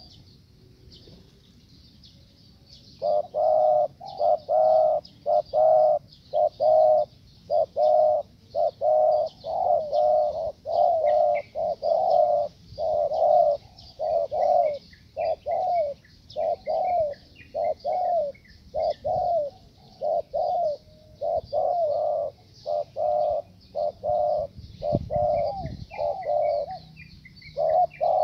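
Spotted dove cooing over and over, a short coo a little more than once a second, starting about three seconds in.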